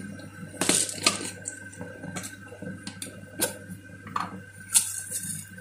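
Scattered light clinks and knocks of kitchen handling around a stainless-steel cooking pot of water and spices, roughly one or two a second, over a faint steady hum.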